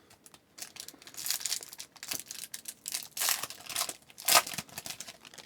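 A hockey card pack's wrapper being torn open and crinkled by hand, in a run of crackly bursts, the loudest near the end.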